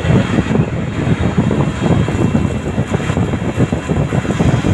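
CNC lathe machining a thread plug under flood coolant: the coolant sprays and splashes over the turret and workpiece in a dense, steady rush with the machine running underneath.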